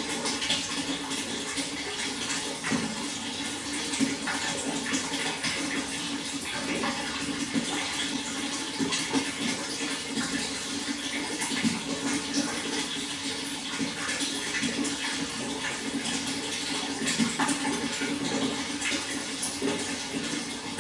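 Water flowing steadily: a continuous rush with many small irregular splashes throughout.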